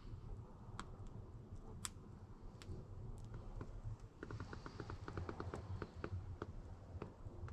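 Campfire crackling faintly, with scattered sharp pops and a quick run of rapid clicks about four seconds in, over a low steady rumble.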